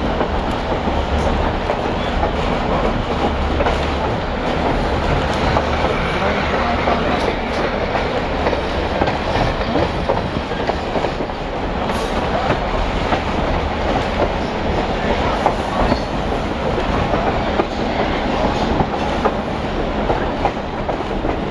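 Passenger train running along the track, heard from aboard a coach: a steady rumble of wheels on rail with scattered clicks.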